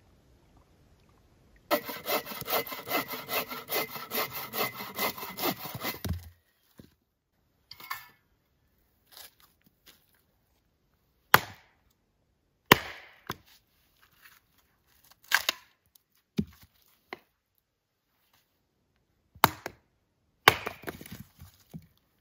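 A hand saw cutting through wood with quick even strokes, about three a second, for about four seconds. Then a hatchet splitting firewood into kindling: about six sharp single strikes a second or more apart.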